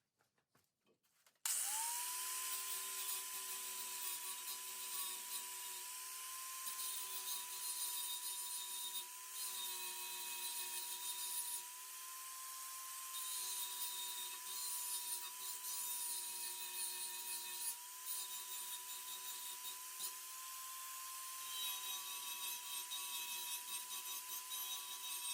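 Handheld power tool abrading a steel floor brace to bare metal. It spins up about a second and a half in, then runs steadily with a constant whine over a harsh hiss, dipping slightly in pitch now and then as it is pressed onto the work.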